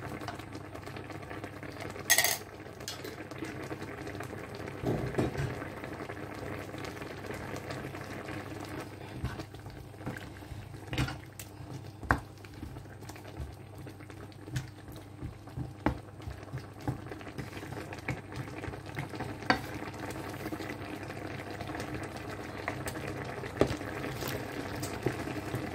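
Pork-bone curry bubbling at a boil in a wok, with a spoon scraping and knocking against the pan as it is stirred: a steady bubbling broken by scattered sharp clicks.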